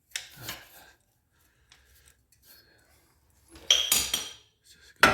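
Metal-on-metal clinks and clanks of tools against the car's front suspension parts. A brief scrape comes about a quarter second in. Then a cluster of sharp, ringing strikes follows from about three and a half seconds, and another near the end.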